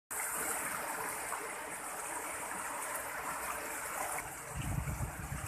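River water rushing and splashing over rocks in shallow rapids, a steady wash of noise. A low rumble joins it near the end.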